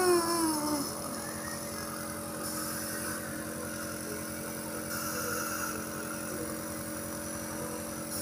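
Small compressor motor of a nebulizer running with a steady hum during a child's cough-and-cold treatment.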